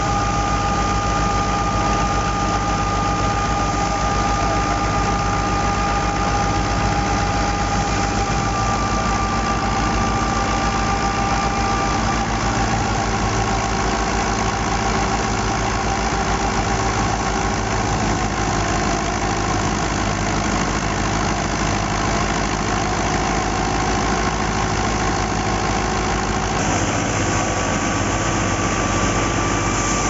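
Fiat 640 tractor's diesel engine running steadily while it drives a wheat thresher, the thresher's drum adding a steady hum and a high whine. The sound shifts about 27 seconds in.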